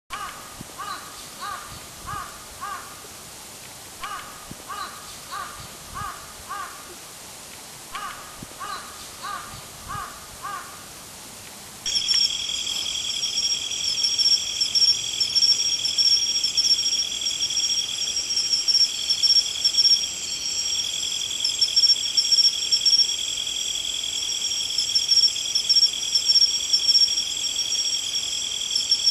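A crow cawing in three runs of about five caws each. About twelve seconds in, the sound switches abruptly to a steady, high, shrill chorus of insects.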